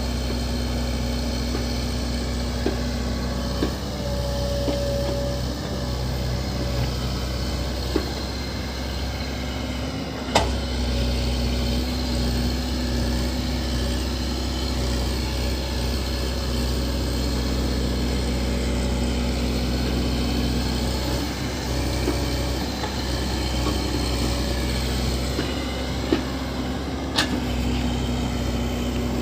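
JCB backhoe loader's diesel engine running steadily, with a few sharp knocks, the loudest about ten seconds in and another near the end.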